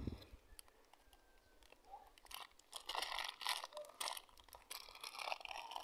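A bare hand scraping and pressing dry, crumbly soil over freshly sown seeds, heard as a few faint short scrapes in clusters starting about two seconds in.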